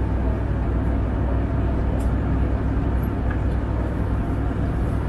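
Airbus A320 cabin noise: a steady low rumble of the engines and airframe heard from inside the passenger cabin.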